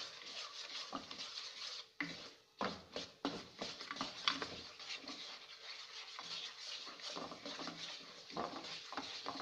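Spatula scraping and stirring roasted chickpeas through sticky jaggery syrup, cooked to the hard-crack stage, in a pan: a run of irregular scrapes with light knocks as the chickpeas are turned over.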